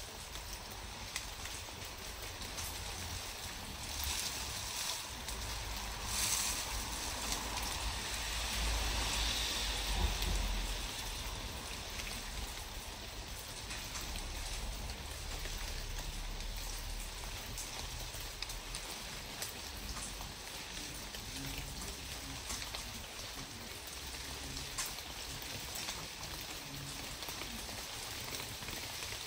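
Steady outdoor hiss with a low, uneven rumble underneath, swelling for a few seconds about six to ten seconds in.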